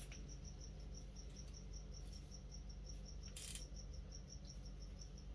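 Insect chirping steadily, a short high-pitched chirp about five times a second, over a low hum. A brief hiss sounds about three and a half seconds in.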